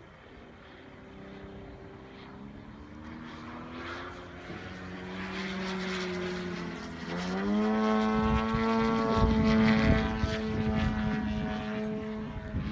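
Engine and propeller of a 2.7 m Pilot-RC 330 SV radio-controlled aerobatic model airplane flying overhead. The note sags slightly at first, then about seven seconds in it rises quickly to a higher, steady pitch and grows much louder as the throttle opens.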